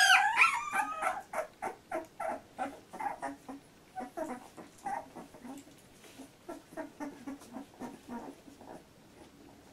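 Two-week-old Labrador retriever puppies whimpering. One loud whine rises and falls in pitch at the start, then comes a run of short whimpers, about three a second, that grows fainter and dies away near the end.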